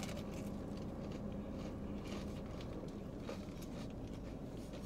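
A bite into a crispy fried chicken sandwich and chewing: faint, scattered crunches over a steady low hum.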